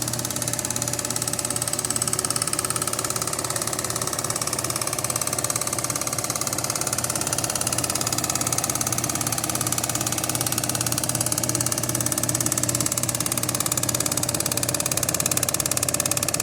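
1930s Walker-Turner Driver Line scroll saw running steadily, its blade reciprocating in a fast, even rhythm over a steady motor hum.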